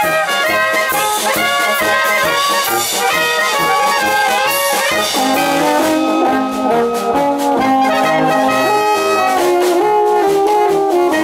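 Brass band of clarinets, tenor horns, trumpets and trombone playing a tune live, with a lower brass line coming in about halfway through.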